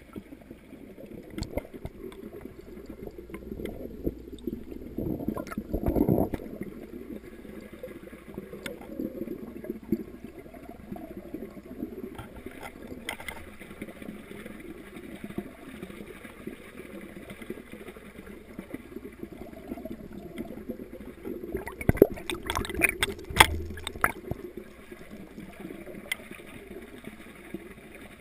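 Muffled, gurgling water heard with the microphone underwater in a fish pond, swelling louder about six seconds in. A quick run of knocks comes about three quarters of the way through and is the loudest part.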